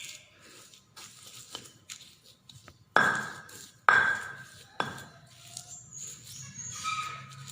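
Pestle and mortar (Indonesian ulekan and cobek) grinding and mixing a peanut-chilli paste: soft scraping with three sharp knocks that ring briefly, about 3, 4 and 5 seconds in.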